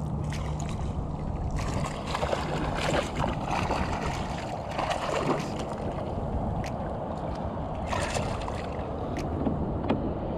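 Water sloshing around a sit-on-top kayak while a hooked speckled sea trout thrashes and splashes at the surface beside it, with a few sharp clicks near the end.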